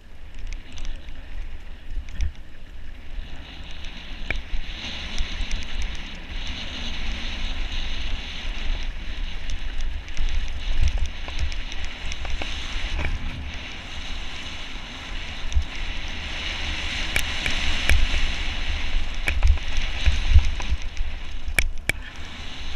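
Mountain bike rolling fast down a loose gravel trail: tyres crunching over stones and wind rumbling on the camera microphone, with frequent knocks and rattles from the bike over bumps. The noise swells as speed picks up, and there are a few sharp clacks near the end.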